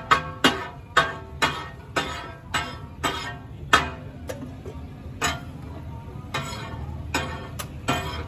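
Katakat: flat metal spatula blades clanging on a large iron tawa griddle as fish is chopped, each strike ringing. The strikes come fast and rhythmic, about four a second at first, then thin out to scattered clangs after a couple of seconds.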